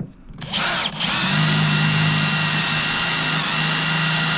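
Power drill spinning up about half a second in, then running steadily with a high whine, boring one of the mounting holes for a trolling motor mount through the boat's bow deck.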